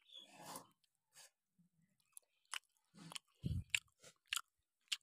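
Close-up chewing of a mouthful of rice and jackfruit curry, with scattered short, sharp mouth clicks and a low thump about three and a half seconds in.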